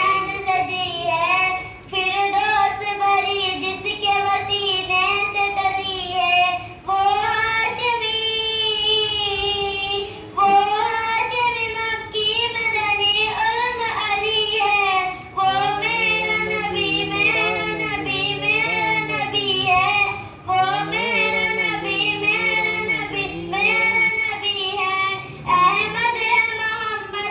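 A young girl singing a naat, a devotional praise song, into a microphone: long ornamented phrases that waver up and down in pitch, with short breaths between them every few seconds.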